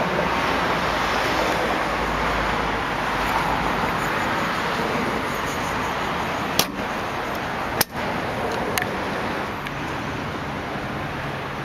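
Steady outdoor traffic noise, an even hiss with no engine note standing out, broken by two sharp clicks a little over a second apart about halfway through.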